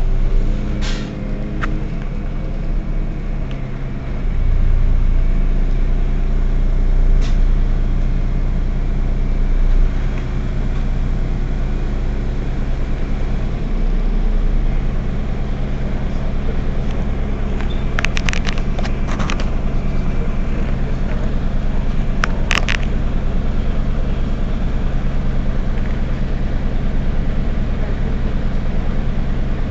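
Heuliez GX 127 city bus's diesel engine idling steadily at a stop. The low rumble is heavier during the first third, and a few short sharp clicks come about two-thirds of the way in.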